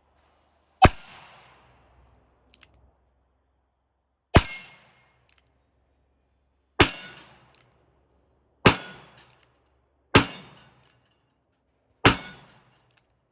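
Six gunshots fired one at a time, spaced about one and a half to three and a half seconds apart, each with a short echoing tail.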